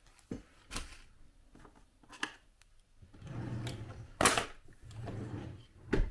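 Desk drawer pulled open with a scraping slide and a sharp knock as it reaches its stop, then slid shut with a second knock. A few light clicks of objects being handled come first.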